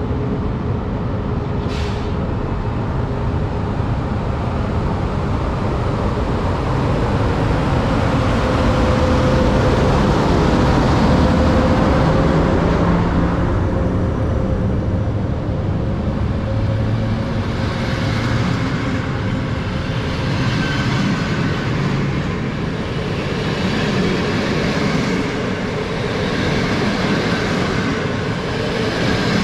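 Passenger train hauled by an EP09 electric locomotive passing at speed: a continuous loud rush of rolling noise with a steady whine under it in the first half. In the second half the noise swells and falls about every two seconds as the coaches' wheelsets go by.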